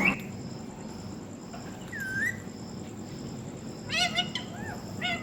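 Pet parrot calling: one short dipping whistle, then a few quick chirping calls about a second and a half later and again near the end.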